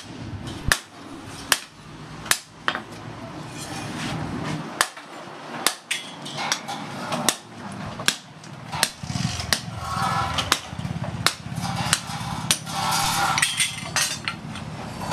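Hand hammer striking a long steel sword blank laid across a post anvil: sharp metal blows at about one to two a second, straightening the bent bar.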